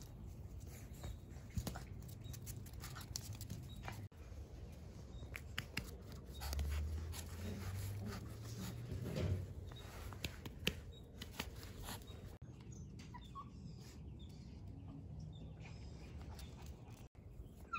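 Australian Shepherd puppies moving about and playing on concrete: light, scattered taps and scuffs of small paws, with a low rumble for a few seconds in the middle.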